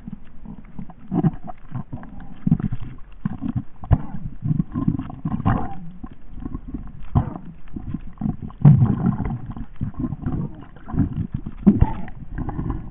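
Muffled, irregular low rumbling from a camera held underwater, as water moves over it, with several sharp handling knocks.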